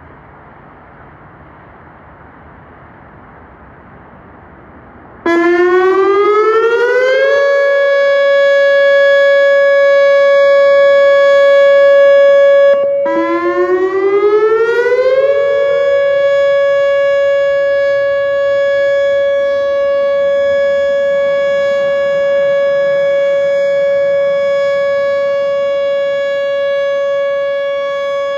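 Whelen WPS-2910 electronic outdoor warning siren sounding its short alert tone. After about five seconds of faint background hiss, the tone starts loud, rises in pitch over about two seconds and holds steady. About halfway through it cuts out for a moment, rises again and holds steady.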